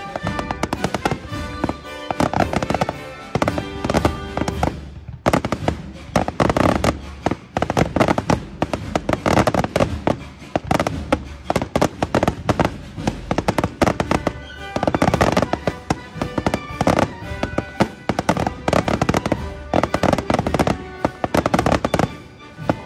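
Fireworks crackling and banging in rapid, dense succession, with music playing along; the sound breaks off abruptly about five seconds in and picks up again at once.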